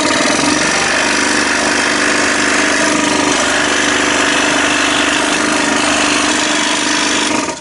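Scroll saw running and cutting through a board of laminated wood strips: a steady buzzing hum that cuts off suddenly near the end.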